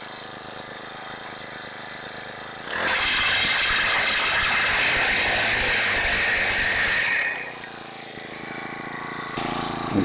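Higos 38 cc four-stroke motorized pile driver idling steadily, then throttled up for about four and a half seconds as it hammers a metal chain-link fence post into the ground, then dropping back to idle.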